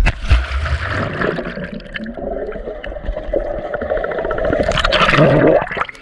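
A splash as an action camera plunges into a swimming pool, then muffled underwater gurgling and rushing of the churned water around the submerged camera. The sound grows loudest near the end and then cuts off sharply.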